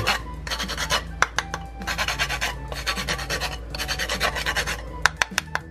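Whole nutmeg being grated on a small cylindrical stainless-steel grater: repeated rasping strokes of nut on metal, with a few sharp clicks near the end.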